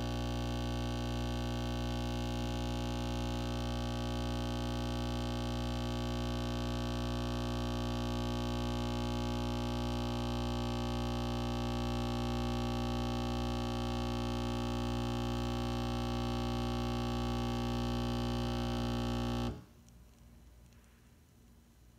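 Breville Nespresso capsule machine's vibratory pump buzzing steadily as it brews an espresso shot, then cutting off suddenly near the end as the shot finishes.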